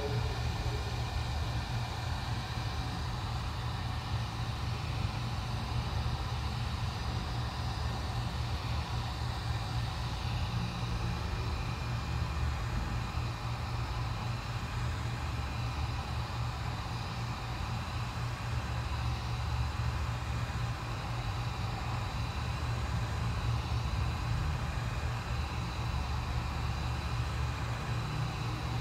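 Handheld heat gun running steadily: a constant rush of blown air over a low hum, with a faint high whine. It is heating the glued-down charging flex to soften the adhesive.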